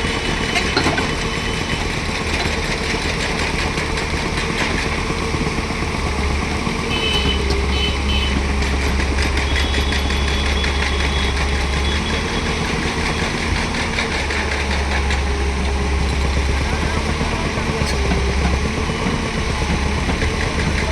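Excavator's diesel engine running steadily. Its low drone swells louder for a few seconds at a time, about three times.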